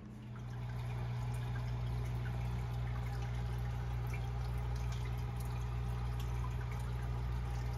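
Aquarium running: a steady trickle of moving water over a low, even pump hum.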